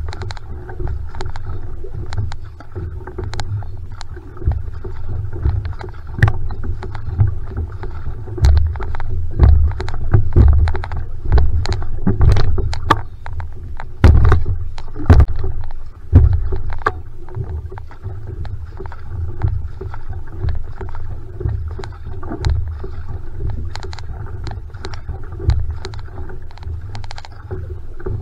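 Single-blade paddle strokes driving an outrigger canoe (va'a) at a steady race pace: the blade catches and splashes, and water rushes along the hull over a constant low rumble. The strokes are loudest from about a third to halfway through.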